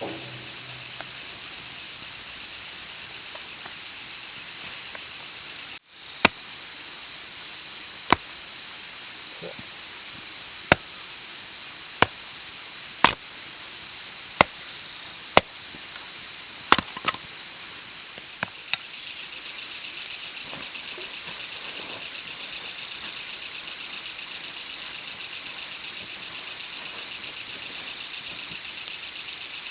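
A steady, high insect chirring throughout, with about ten sharp, separate pops in the middle stretch, the sound of a wood campfire crackling.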